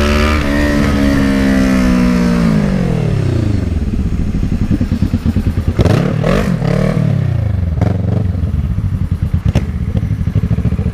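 Kawasaki ER-6n's 650cc parallel-twin engine held at high revs, then winding down over a couple of seconds. About six seconds in it revs up briefly and falls back, then runs at low revs.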